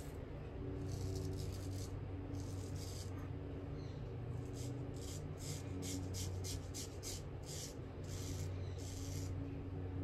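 Joseph Allen straight razor scraping through lathered stubble on the chin and jaw in a series of short strokes, with a quick run of rapid strokes in the middle, over a steady low hum.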